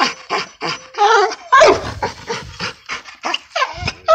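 Pocket bully dogs panting hard in quick, short breaths, about three a second, with a few short yelps and barks mixed in.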